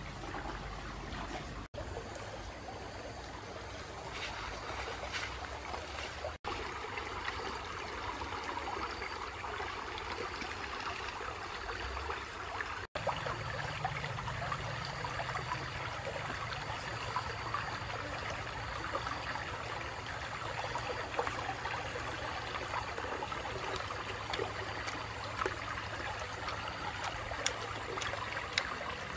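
Shallow rocky stream running over stones: a steady rush of water with small scattered ticks, broken off for an instant three times.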